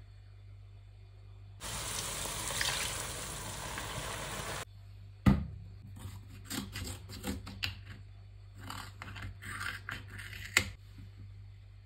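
A steady hiss lasting about three seconds, then a single thump, then scissors snipping through a paperboard carton in a series of crisp cuts, the last one the loudest.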